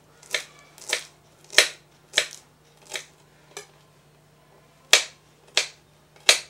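Chef's knife chopping cilantro stems on a cutting board: about nine sharp chops, roughly one every half second or so, with a pause of just over a second after the middle.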